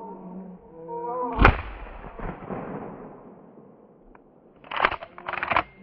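A single shotgun shot about a second and a half in, fading out over the following second, with beagles baying just before it. Two short scraping noises come near the end.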